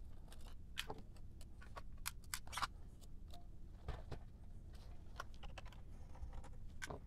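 Faint, scattered light clicks and taps of hands and a screwdriver on the plastic body and screws of a 1985 Sony CCD-V8AF Video 8 camcorder as it is turned on the bench and unscrewed.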